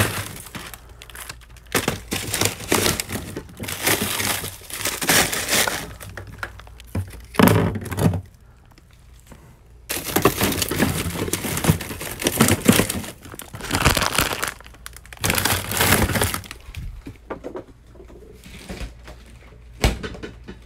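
Handling noise: rustling and scraping in irregular bursts as the phone is moved against nearby surfaces. It goes quiet for a couple of seconds about eight seconds in, and there is a sharp knock near the end.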